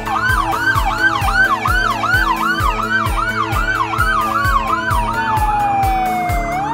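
Police car sirens: one in yelp mode, rising and falling quickly about twice a second, and another in wail mode, gliding slowly down and back up. Background music with a steady beat plays underneath.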